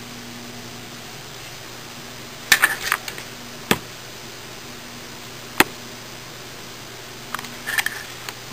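An agama lizard's claws clicking and scrabbling on the hard surface of a bathtub: a short run of taps about two and a half seconds in, two single sharp clicks after it, and another short run near the end, over a steady low hum.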